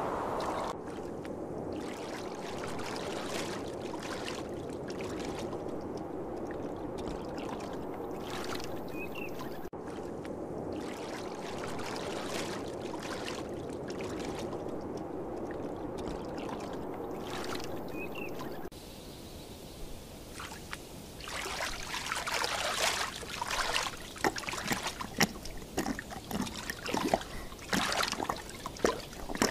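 Steady flowing water like a stream runs through the first two-thirds. Then it gives way to irregular splashing and lapping of water as a tiger wades in and drinks, louder toward the end.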